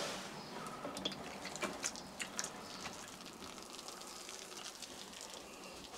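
Faint wet handling of a plaster of Paris bandage strip soaked in water: scattered small drips, crinkles and clicks, mostly in the first half, over a low hiss.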